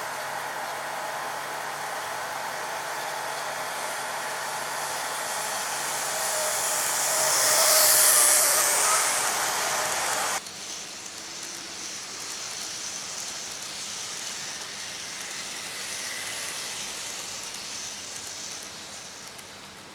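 Model train running along the layout track, a steady hissing run that swells as it passes close, peaking about eight seconds in. It drops off abruptly after about ten seconds and carries on more faintly.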